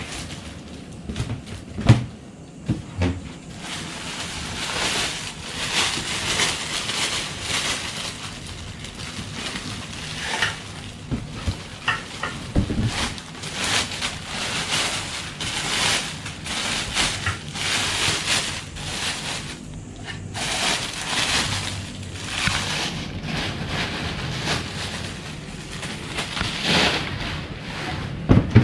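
Packaging being pulled off a boxed gas stove: continuous irregular rustling and crinkling of plastic wrap and cardboard, with a few knocks in the first few seconds.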